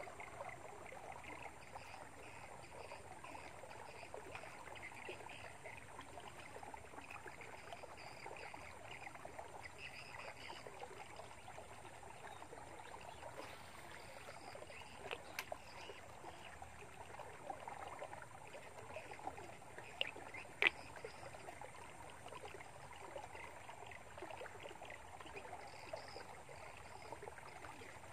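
Faint open-air ambience of a swampy creek: an even, crackly hiss with faint high chirping, broken by a few sharp clicks about fifteen and twenty seconds in.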